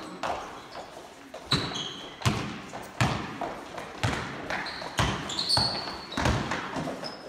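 Basketball being dribbled on an indoor gym court, a bounce roughly every three-quarters of a second, each echoing in the hall, with a few short high-pitched sneaker squeaks on the floor.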